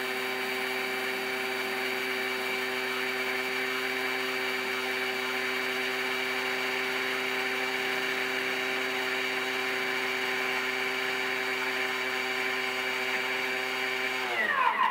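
Thermomix TM6 running on speed 9 to mill granulated sugar finer: a steady high motor whine over a rushing noise. Near the end it winds down, the pitch falling, and stops.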